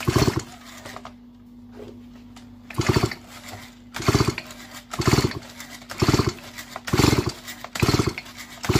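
Chainsaw's recoil starter pulled over and over, cranking the engine with the spark plug out and an adjustable spark gap tester in its place to check the ignition coil for spark. Each pull is a short whirring rasp: one at the start, then after a pause about one a second.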